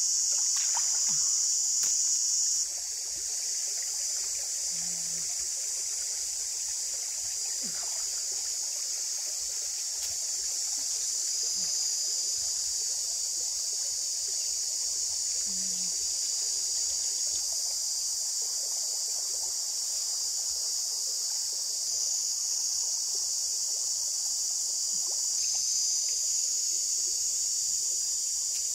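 Steady creek-side outdoor ambience: water gently trickling under a high, even insect drone, with a few faint knocks.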